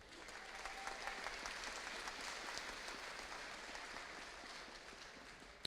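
Audience applauding with a patter of many hands clapping, which builds in the first second and tapers off near the end.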